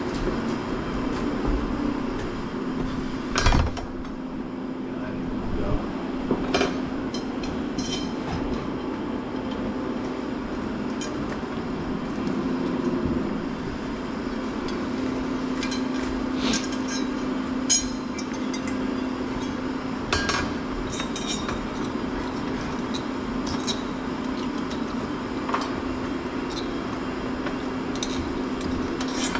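A steady low hum with scattered light metallic clinks and knocks of hardware and tools being handled, the loudest knock about three and a half seconds in.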